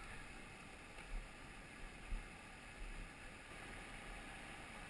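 Faint, steady rush of river water running over rocks through a shallow rapid, with a few soft low thumps about one, two and three seconds in.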